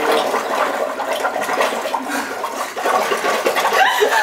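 Several people blowing through straws into a large fishbowl of tomato-juice michelada, the drink bubbling and churning like jacuzzi jets. Laughter breaks in near the end.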